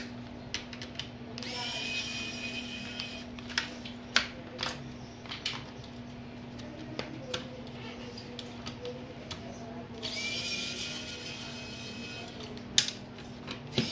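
Cordless electric precision screwdriver whirring in two runs of about two seconds each, a little over a second in and again about ten seconds in, backing out the screws that hold a laptop motherboard. Sharp clicks and taps of the bit and screws come between the runs.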